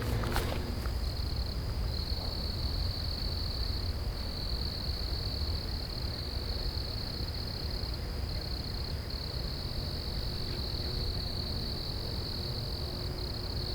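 Insect trilling: one steady high-pitched note that runs on with a few brief dips, over a low rumble.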